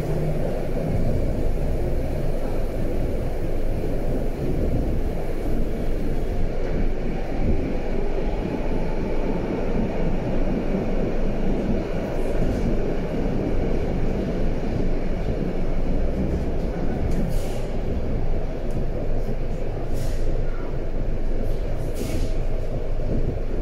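BVG A3L71 small-profile U-Bahn train running along the track, heard from inside the car: a steady rumble of wheels and running gear, with a few short clicks in the second half.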